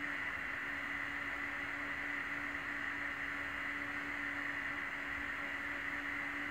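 Countertop blender running steadily at a constant speed, blending a purple liquid: an even motor hum under a whirring hiss, with no change in pitch.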